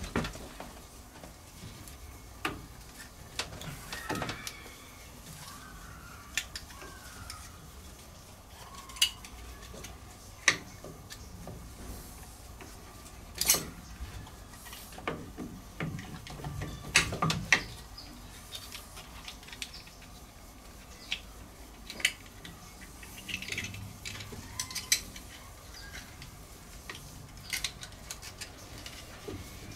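Irregular metallic clinks and knocks of steel and brass parts being handled as the wrist pin bearing on a steam engine's low-pressure connecting rod is fitted back together by hand. The loudest knocks fall about nine, ten, thirteen and seventeen seconds in.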